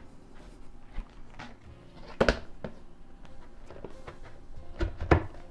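Hard plastic parts of a Greenworks 40V blower/vac knocking and clicking as the vacuum tube is handled and fitted onto the blower housing: a few separate knocks, the loudest about two seconds in and two close together near the end.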